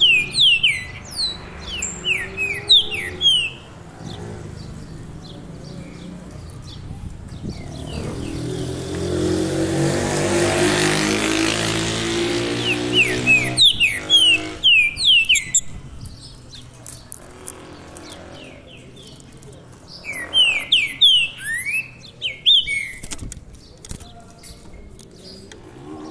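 Caged chopi blackbird singing in three bursts of quick, sweeping whistled notes: at the start, near the middle and again past two-thirds of the way. Between the first two bursts a vehicle passes with an engine sound that swells and fades.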